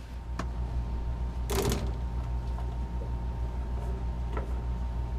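A boat's freshwater pressure pump switching on and running with a steady low hum, rattling the bulkhead it is screwed to as it repressurizes the water system after the pressure has dropped. A brief clatter about a second and a half in.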